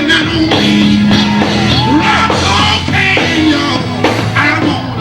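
Live gospel band music with drums and a steady bass line, a singer's voice sliding between notes without clear words over it.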